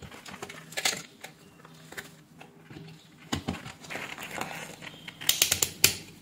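Handling noise as test leads are pushed into the sockets of an Aneng SZ303 multimeter and moved about on a bench. Near the end comes a quick run of sharp clicks as the meter's rotary selector switch is turned through its detents.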